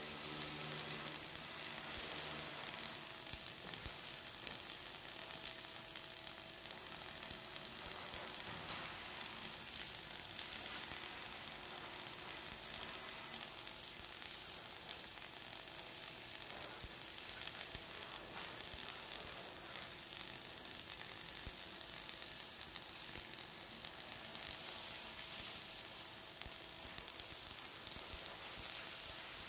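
Flux-cored arc welding on carbon steel: the arc burns continuously with a steady crackling sizzle.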